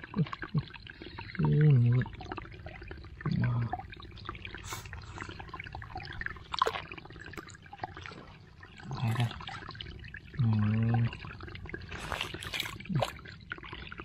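Shallow running water trickling and splashing around hands working in a muddy rice-field channel, with a few sharper splashes. A man's short wordless voice sounds break in four times.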